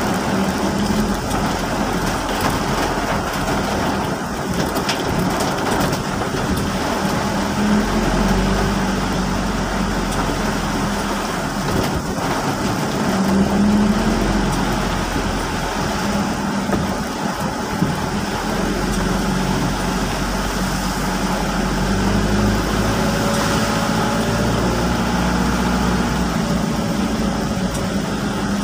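Steady rain mixed with a moving vehicle's engine running and its tyres on a wet road.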